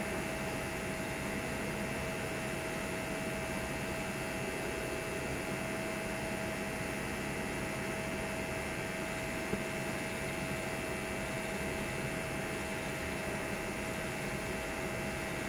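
TIG welding arc on a stainless steel sanitary pipe flange: a steady hiss with a thin steady whine over it.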